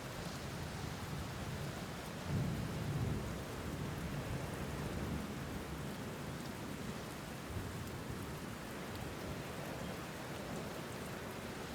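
Steady rain falling, with a low rumble of distant thunder swelling about two seconds in and fading over the following seconds.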